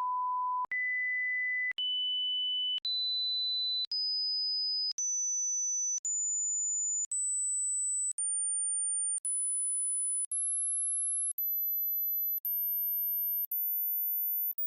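Hearing-test tones: a row of pure electronic beeps about a second each, separated by short gaps, stepping up in pitch in even jumps from a mid-range tone to a very high one near the upper limit of hearing. The highest steps are the ones that older ears stop hearing, which is how such a test gauges the age of your hearing.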